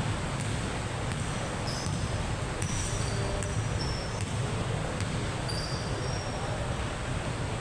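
Basketball game sounds: a ball bouncing now and then and short high-pitched sneaker squeaks on the court floor, over a steady background din of the hall.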